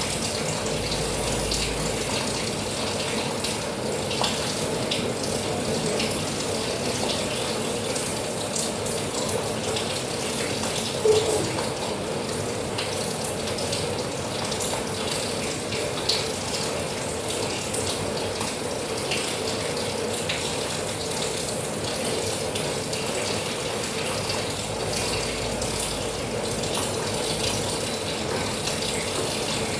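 Steady rain falling, with a dense patter of drops ticking on a hard surface and a single louder tap about eleven seconds in.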